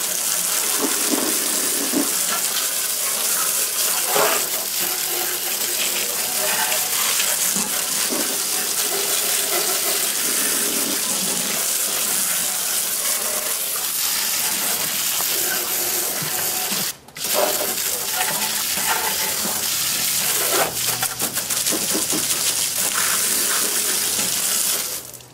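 Garden hose spray gun jetting water onto a lawnmower's wheels and deck, a steady loud hiss and spatter of water washing off the grass. The spray cuts out for a moment about seventeen seconds in, then starts again.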